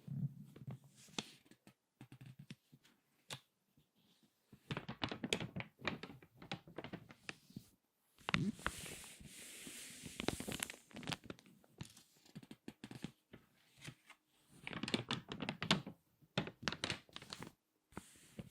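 Crinkly magazine pages being turned and squeezed by hand: bursts of dense paper crackling with short pauses between them, and the longest stretch of rustling about halfway through.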